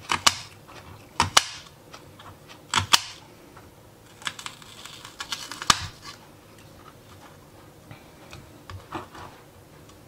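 Kitchen knife cutting red onion on a plastic cutting board: sharp knocks as the blade hits the board, irregular and a second or more apart, the loudest in the first six seconds.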